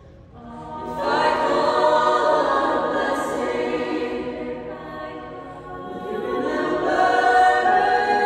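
All-treble a cappella group of women's voices singing in close harmony. After a brief hush it swells in about a second in, eases off midway and builds again near the end.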